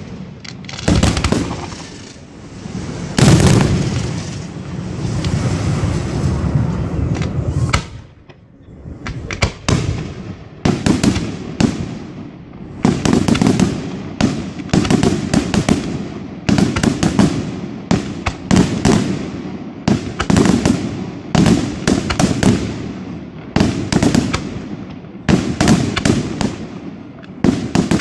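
Aerial firework shells bursting one after another in sharp bangs. A big bang about three seconds in trails off over several seconds, there is a short lull near eight seconds, and then the bangs come quickly, about two a second.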